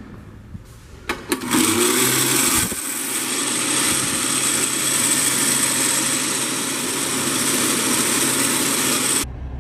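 Wall-mounted push-button hair dryer starting up about a second in and blowing a steady, loud rush of air, then cutting off suddenly near the end.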